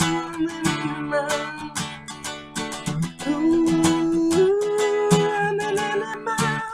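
Acoustic guitar music in a groovy reggae style: an instrumental break with rhythmic strummed chords under long held lead notes that bend and slide in pitch.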